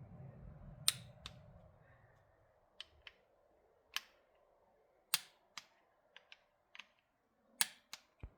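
About a dozen sharp, separate clicks, some in close pairs, from a small click-type inch-pound torque wrench breaking over as the transmission valve body bolts reach 60 inch-pounds. A low rustle of handling for the first two seconds.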